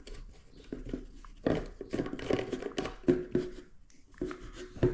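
A plastic slip nut being threaded by hand onto a plastic sink drain waste arm, with scattered clicks and scraping rubs of plastic on plastic.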